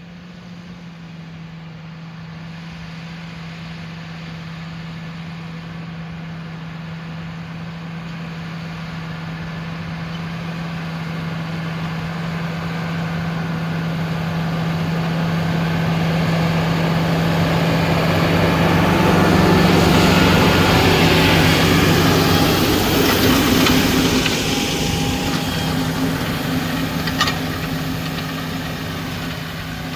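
Tractor pulling a direct drill, its engine holding a steady note. It grows louder as it approaches, is loudest with a rush of noise about twenty seconds in as it passes closest, then fades as it moves away.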